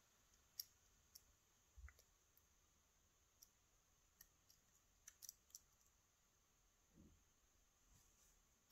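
Faint, irregular clicks of a thin lock pick working the pins inside a pin-tumbler padlock's keyway, with a tension tool holding the plug.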